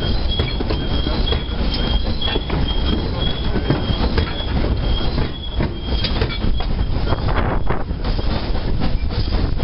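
Narrow-gauge train running along the track, heard from the locomotive's cab: a steady rumble with scattered clicks from the rails. A thin, high wheel squeal comes and goes on the curve and dies away about six seconds in.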